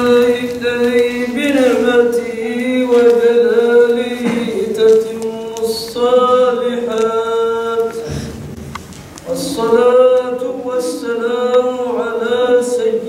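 A man's voice chanting the Arabic opening praises of a sermon in long, drawn-out melodic phrases, with one short break about two-thirds of the way through.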